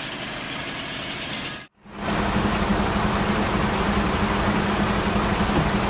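Idling engines of emergency vehicles, a steady rumble. After a brief dropout about one and a half seconds in, a closer, steady engine hum with a constant low tone.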